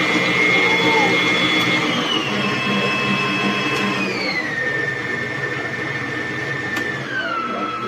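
Electric stand mixer motor running with a steady whine that steps down in pitch three times as the speed setting is turned lower.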